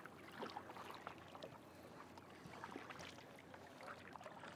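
Faint water sounds of kayak paddling: small splashes and drips scattered over a low steady hiss.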